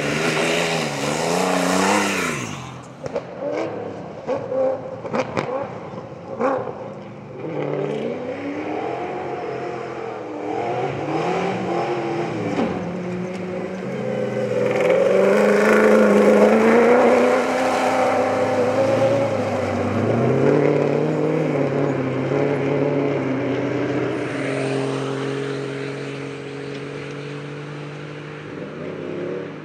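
Off-road rally car engines revving hard as the cars drive through a dirt stage one after another, the pitch repeatedly climbing and dropping with throttle and gear changes. A run of sharp clicks and knocks comes a few seconds in. The engines are loudest about halfway through, then settle into a steadier drone.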